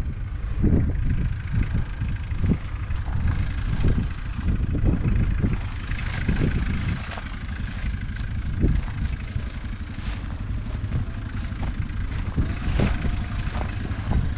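JCB Fastrac 4220's 6.6-litre six-cylinder diesel engine running steadily, with gusts of wind buffeting the microphone.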